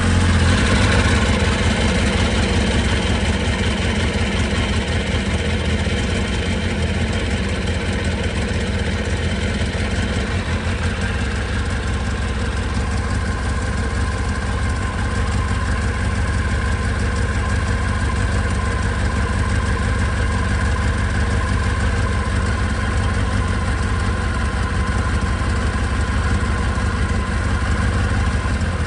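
2024 Kawasaki ZX-10R's inline-four engine idling steadily just after a start, a little louder in the first couple of seconds, then settling. It is being run briefly on fresh oil after an oil change to circulate it before the level is checked.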